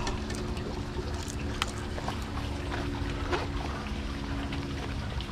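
Wind rumbling on the microphone with scattered small ticks, like raindrops, and a steady low hum underneath.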